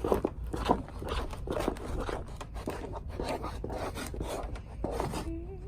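Fluffy slime mix of white glue and shaving cream being stirred: irregular scraping and rubbing strokes.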